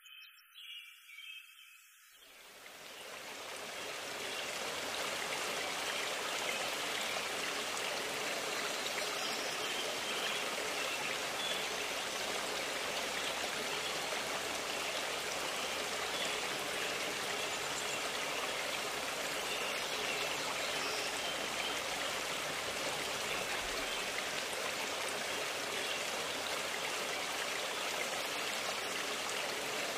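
Steady rushing of a forest stream, fading in over the first few seconds and then holding even.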